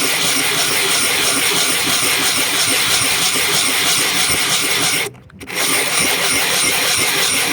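Cut edge of a glass bottle ground by hand on wet 50-grit silicon carbide paper: a steady gritty scraping, with a short break about five seconds in.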